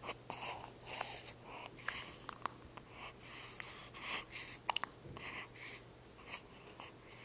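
Hiccups: a string of short, breathy gasps and sniffs with a few sharp little clicks among them.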